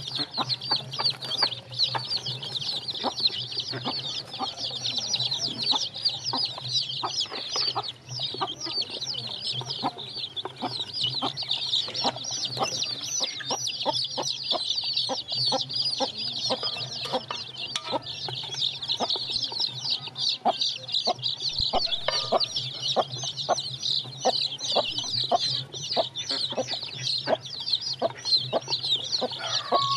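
A flock of young chicks peeping continuously, a dense chorus of many short high-pitched peeps overlapping, with frequent sharp taps of beaks pecking at the feed trough. A steady low hum runs underneath.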